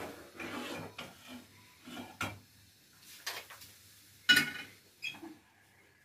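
Kitchen handling noises at a gas stove: a few light knocks, scrapes and rubs of a plastic container and cookware, with one louder clank of metal that rings briefly about four seconds in.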